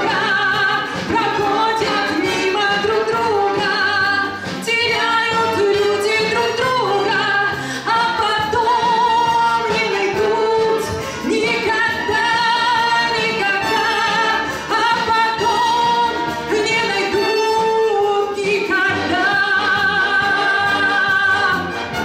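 A woman sings a melody with held, wavering notes over the accompaniment of a military wind band of saxophones, horns and trumpets.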